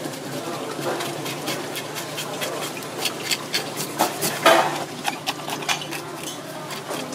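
Short scraping and clicking strokes of hands and a tool working a whole fish on a wet wooden cutting board, two or three a second and loudest about four and a half seconds in, over a steady low hum and water running from a hose.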